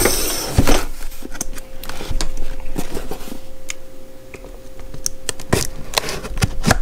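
Scissors snipping at the tape on a cardboard box flap, with the box being handled: a string of small clicks and scrapes, and a rustle of cardboard in the first second.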